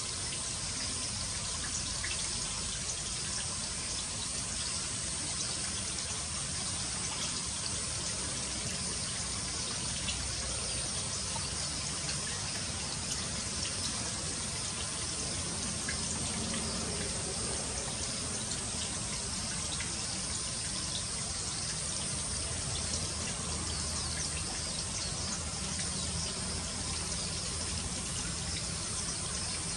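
Water trickling steadily, an even hiss with no breaks or distinct events.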